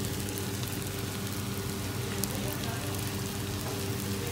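Chicken masala sizzling on a hot flat griddle, a steady crackling hiss, over a steady low hum.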